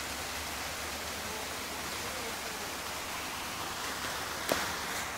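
Steady rush of water from a small waterfall spilling down a rocky forest stream, with one brief knock about four and a half seconds in.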